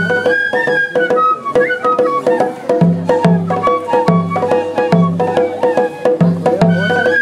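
Japanese festival ohayashi music: transverse bamboo flutes playing a stepping melody over a large taiko drum's low beats and frequent sharp wooden clicks.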